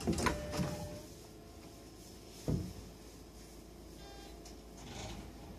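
Commuter train sliding doors shutting with a few sharp knocks, then a low steady hum from the standing train. A single dull thump about two and a half seconds in, and a brief faint beep near four seconds.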